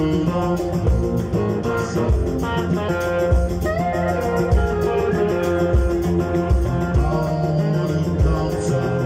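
Live band playing electric guitars, bass guitar and drums through a PA, with a steady drum beat and a singer's voice over it; one note slides up about four seconds in.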